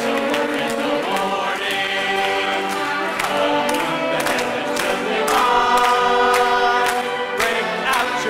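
A stage-musical cast singing together as a chorus, many voices in harmony, over a steady sharp beat about twice a second.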